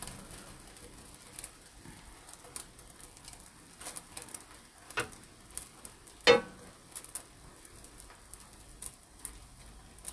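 Rolled egg omelette (gyeran-mari) sizzling faintly in a frying pan, with scattered light taps of a metal spatula against the pan, the loudest about six seconds in.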